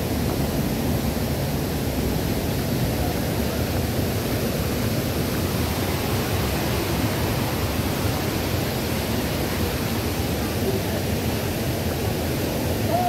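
Rushing water of a cascading mountain stream or waterfall, a steady, loud, even noise.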